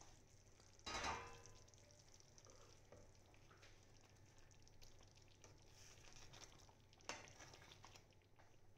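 Thick curry gravy simmering faintly in a metal pan while a spoon and a slotted spatula stir it. The utensil scrapes against the pan twice, about a second in and again near the end.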